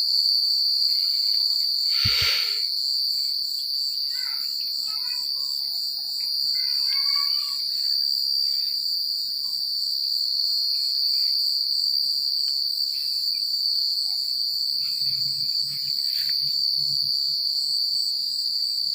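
A chorus of crickets chirping: one steady, unbroken high-pitched trill, with a faster, evenly pulsing chirping above it. A brief sharp click sounds about two seconds in.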